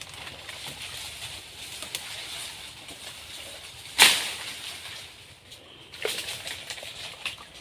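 Rustling and crunching of dry palm fronds and stalks as people push through dense swamp vegetation on foot, with a sharp crack about four seconds in and a smaller one about two seconds later.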